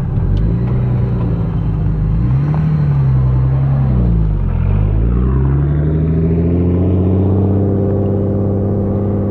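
Car engine running, its low note dipping and rising in pitch a couple of times over the first few seconds, then holding a steady pitch.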